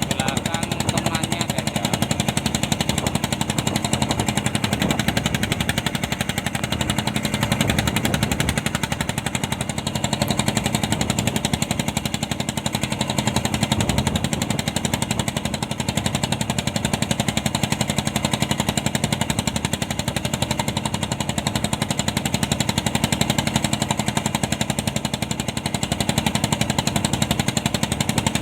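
Fishing boat's diesel engine running steadily at close range, a loud, rapid, even knocking that does not change.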